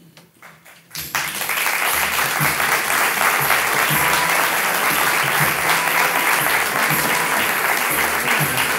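Loud audience applause breaks out suddenly about a second in, over music with a low, pulsing beat.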